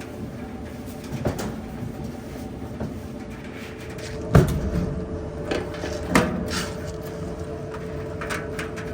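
Clothes dryer running with a steady hum, with a few knocks and clunks on top, the loudest about four and a half seconds in.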